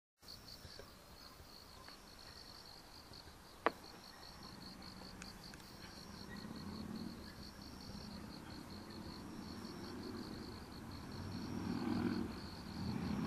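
Faint insects chirping in a steady, pulsing trill. A low rumble swells in the second half, and there is a single sharp click about three and a half seconds in.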